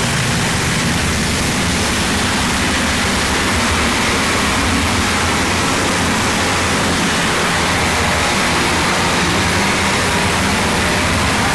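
Harsh noise wall: a dense, unchanging wall of loud distorted noise across the whole range, with a low rumble underneath.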